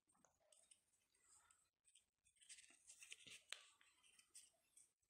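Near silence with faint rustling and small crackles of origami paper being pressed and pushed into a fold, the crackles clustering around the middle.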